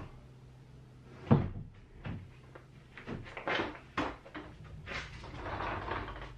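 A series of irregular knocks and clunks, the loudest a sharp knock about a second in, over a low steady hum.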